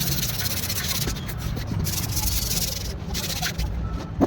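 Steady rasping rub of sanding on a subwoofer box's surface, with short breaks about three and four seconds in and a sharp knock at the very end.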